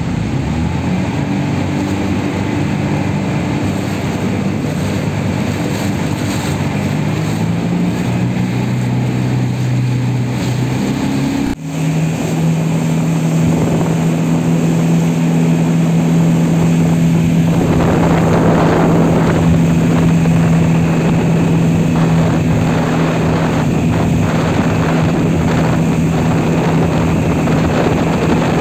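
Speedboat engine running at speed, its pitch stepping up during the first half. After a brief break it drones on at one steady pitch, and a rushing wind noise on the microphone swells up over the last third.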